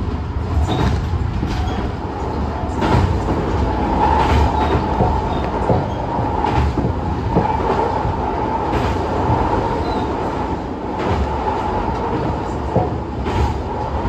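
Tobu 50090-series electric train running at speed on the Tojo Line, heard from inside the car: a steady rumble with a faint steady whine and irregular clicks of the wheels over rail joints.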